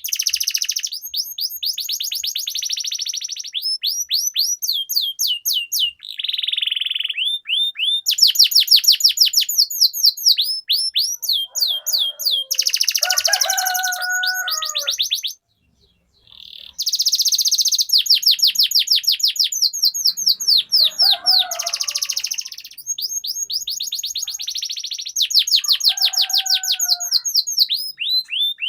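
Domestic canary singing long rolling trills: runs of very fast repeated high notes, with a few lower warbled phrases mixed in. The song breaks off for about a second roughly halfway through.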